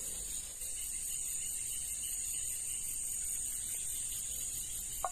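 Chorus of insects in the swamp vegetation: a steady high-pitched shrilling with a fast, even pulse.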